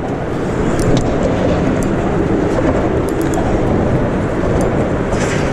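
A steady, loud rushing rumble with a few faint clicks.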